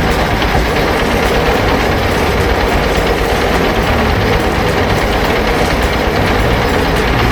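Heavy diesel machinery engine running steadily and loudly, a constant mechanical drone without pauses.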